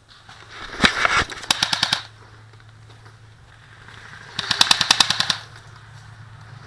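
Airsoft guns firing rapid full-auto bursts: a short burst about a second and a half in, then a longer burst of about a second near the five-second mark.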